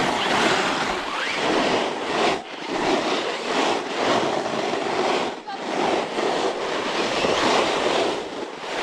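Snowboard sliding down a snowy trail, its base and edges scraping and hissing over the snow, with brief let-ups about two and a half and five and a half seconds in.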